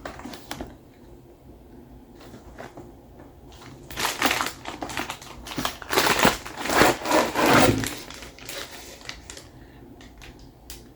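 A cardboard box and its packaging being opened and handled: rustling, crinkling and scraping, loudest from about four to eight seconds in, with a few light clicks before.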